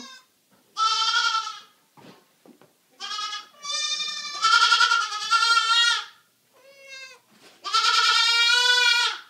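A baby goat bleating loudly over and over: about five high, drawn-out calls with short gaps between them. The longest call comes near the end and lasts about a second and a half.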